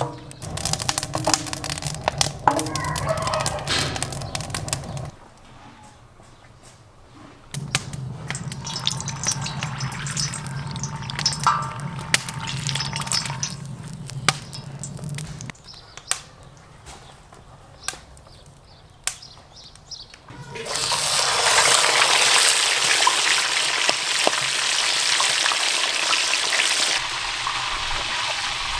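Whole fish frying in hot oil in a wide steel pan: a loud, steady sizzle that starts suddenly about two-thirds of the way in as the fish goes into the oil. Before that come scattered clicks and knocks of handling around the pan.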